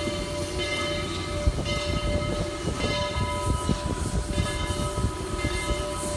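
Train running, a steady low rumble with constant clattering knocks and several steady high tones over it.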